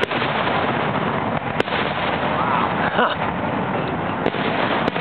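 Aerial fireworks display: sharp shell bursts about five times over a dense, continuous din, with a short whistle about halfway through.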